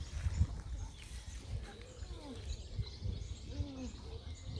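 Several birds calling and singing: short high chirps and a few lower, curved calls, the clearest lower one near the end, over a steady low rumble.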